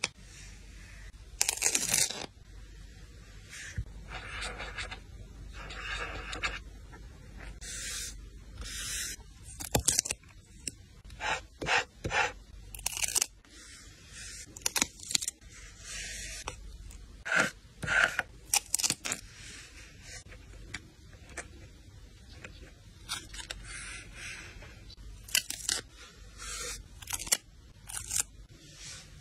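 Hand-work on paper journal materials: a string of separate scrapes, rustles and tearing sounds, with a few sharp clicks among them.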